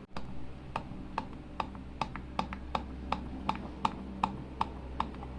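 Wagon R's heater blower motor running with a steady low hum and a regular sharp tick about two to three times a second. The blower shaft has play, which lets the turning fan knock against its housing.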